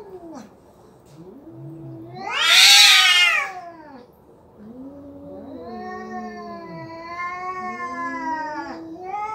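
Two orange tabby cats caterwauling at each other in a standoff: drawn-out wavering yowls, with one loud, high screech about two and a half seconds in, then long overlapping yowls.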